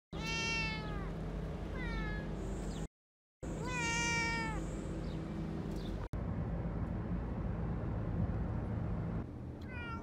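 Long-haired orange cat meowing three times in the first few seconds, each call falling in pitch at its end, over a steady low rumble. Another short meow comes near the end.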